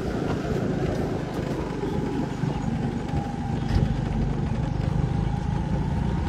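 Motor vehicle engine running steadily at low speed, a low rumble.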